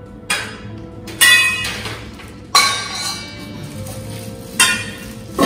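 Metal pieces knocking and clinking together as they are handled, about five sharp clinks, each ringing briefly before dying away. The sounding pieces are stainless steel cookware and metal furniture tubes.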